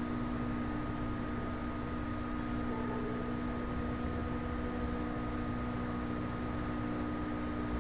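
Room tone: a steady electrical hum with a faint even hiss beneath it.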